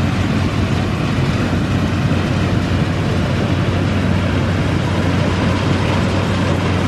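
Yanmar YH850 rice combine harvester running as it turns and drives into the standing rice: a steady, even diesel drone with a strong low hum.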